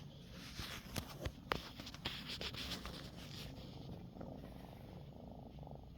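Young domestic cat purring close up, a steady low rumble, with a few sharp clicks and some rustling from handling in the first few seconds.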